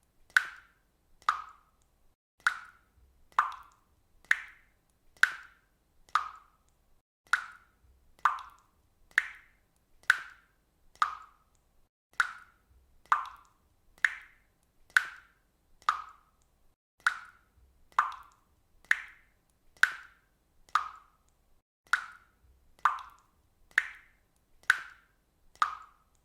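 Water drops falling one at a time into water, about one plop a second in a steady, even rhythm, alternating between a slightly higher and a slightly lower plop.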